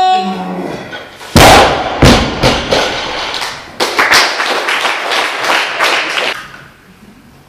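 Loaded barbell with Eleiko bumper plates dropped from overhead onto the lifting platform: a heavy thud about a second and a half in and a second bounce about half a second later. Several seconds of clattering and rattling follow and stop about six seconds in.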